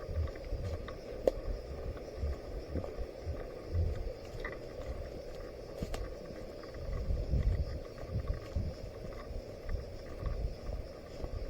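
Wind buffeting and handling noise on a body-worn camera microphone, coming in irregular low rumbles over a faint steady high-pitched drone, with one sharp click about a second in.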